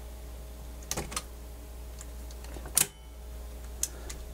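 A few sharp mechanical clicks from the Harman Kardon hk300XM cassette deck's tape mechanism as it is worked: a quick double click about a second in, a louder single click near three seconds and a faint one after it. The speaker takes these for the play solenoid working again. A steady low hum sits under them.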